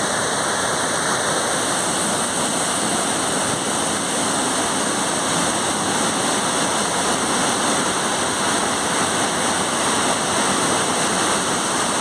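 Manimuthar waterfall and river in flood: heavy floodwater pouring over the rocks and rushing downstream in a steady, unbroken rush.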